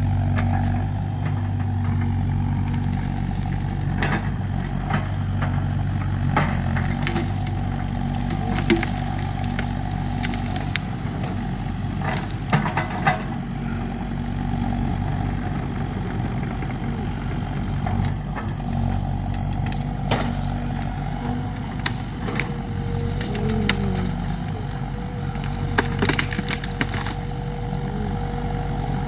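Excavator's diesel engine running steadily, with a big pine tree burning: crackling and sharp snaps scattered all through, several loud cracks around halfway.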